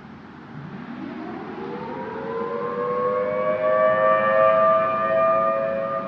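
Federal Signal Thunderbolt 1000 outdoor warning siren starting its weekly test: it winds up from a low growl to a steady wail over about two seconds. It then holds its pitch and grows louder, loudest around four seconds in.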